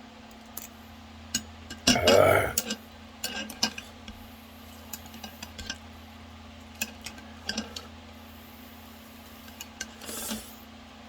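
Eating instant ramen: chopsticks and spoon clicking and clinking against the bowl, with a loud slurp about two seconds in and a softer one near the end.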